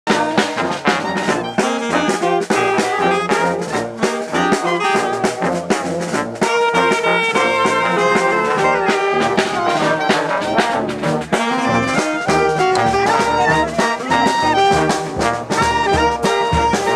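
Marching street band playing a march: trombones, trumpet, sousaphone, saxophones and clarinet in held notes over a steady drum beat.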